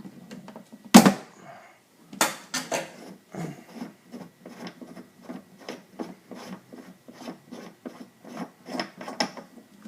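Retaining ring being worked loose from a Marble Products 550 shampoo bowl faucet: a sharp knock about a second in, a few more knocks, then an even run of short scraping clicks, about two to three a second, as the ring is turned off its threads.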